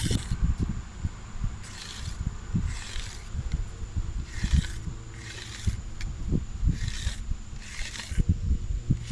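A knife blade scraped down a dry horseweed stalk in about eight short strokes, stripping off its fine fibres and leaf knobs to smooth it into a hand-drill spindle.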